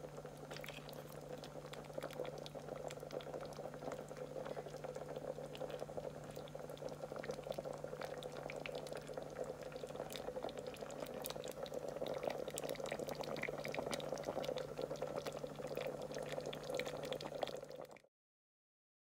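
Curry sauce with crab and dumplings simmering in a pot: a steady bubbling with many small pops, and a low steady hum underneath. The sound cuts off abruptly near the end.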